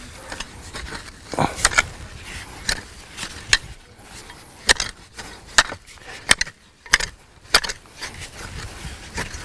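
A garden digging fork worked into straw mulch and soil: about ten sharp, irregular clicks and scrapes from the tines, with a low rustle of straw between them.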